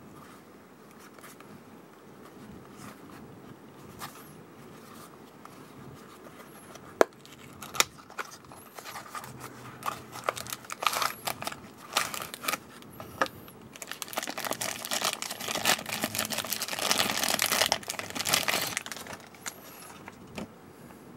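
A small cardboard toy box being handled and opened: scattered sharp clicks and scrapes of the flap, then about five seconds of loud crinkling and rustling packaging as the die-cast toy truck is drawn out.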